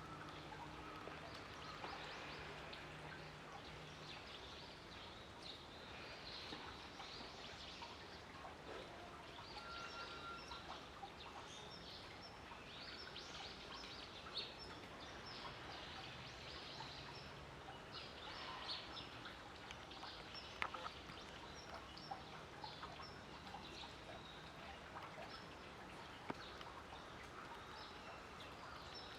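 Faint outdoor ambience with small birds chirping over and over, short high calls scattered throughout, and a low steady hum in the first few seconds and again about halfway through.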